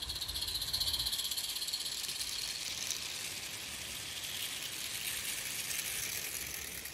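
Small live-steam model locomotive hauling a train of wagons past: a steady hiss of steam over a fast rattle of small wheels on the track, loudest about a second in as the engine passes and easing off near the end.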